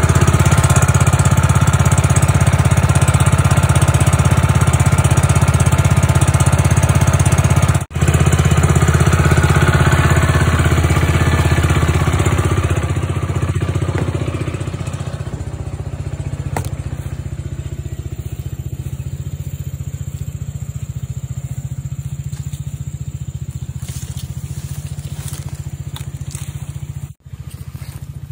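Small Robin 3.5 hp petrol engine running steadily at working speed, driving a power sprayer pump. It is loud at first, then grows fainter about halfway through, with two brief breaks.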